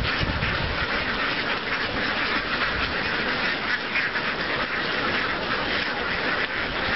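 A large flock of domestic ducks quacking all at once, a dense, continuous chatter of overlapping calls.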